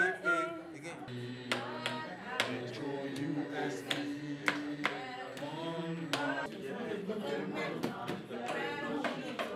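A group of voices singing without instruments, with hand claps keeping time about twice a second.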